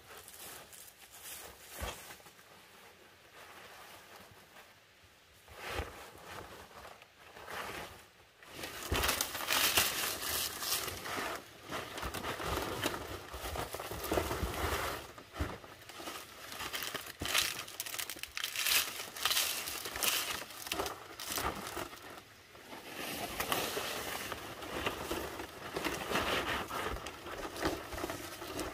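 Large fan-palm leaves rustling and crinkling as they are handled, pushed into place and tied onto a bamboo roof frame. Faint at first, then a dense run of rustling from about eight seconds in.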